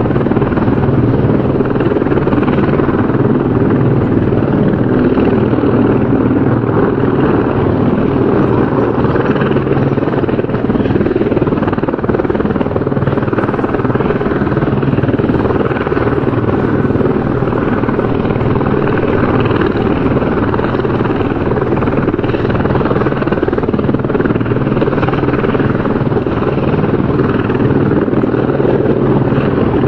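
Helicopter rotor noise, a steady, unbroken chopping that holds at a constant level.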